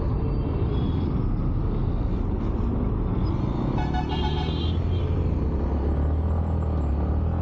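Yamaha MT-15 motorcycle riding in town traffic: steady engine and road rumble that grows deeper and stronger as the bike pulls away, about three and a half seconds in. A vehicle horn toots for about a second near the middle.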